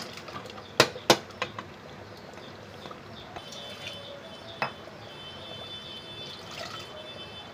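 Thick cooked lentils (dal) poured from metal pots into an aluminium pressure cooker, with sharp metallic clinks of pot rims and the ladle against the cooker, two loud ones about a second in.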